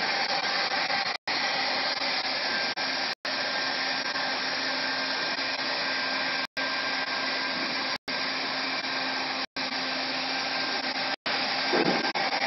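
SWT NS700 geomembrane liner welding machine running, a steady whirring noise with an even hum, as it welds the plastic liner sheets. The sound drops out for an instant several times.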